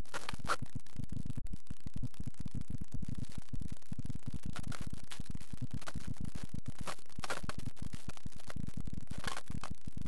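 Handling noise on the camera's microphone: a steady, crackling low rumble with faint scraping now and then.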